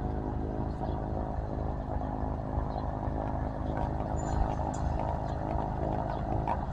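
A single-engine utility plane's engine idling steadily, propeller turning, with a fast even low pulsing.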